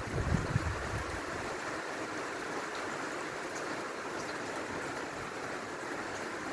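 Steady rain falling, an even hiss throughout, with a brief low rumble just after the start.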